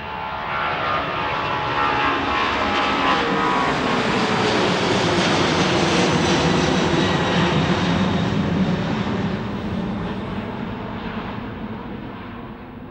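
Three General Electric CF6 turbofans of a KDC-10 tanker (converted DC-10-30) at climb power as it passes overhead. A fan whine falls in pitch over the first few seconds while the jet noise swells, loudest around the middle, then fades as the aircraft climbs away.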